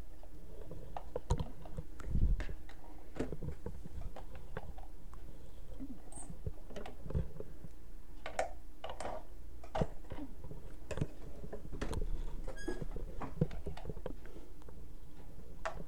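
Computer keyboard keys clicking now and then, irregular single taps, over a steady low hum.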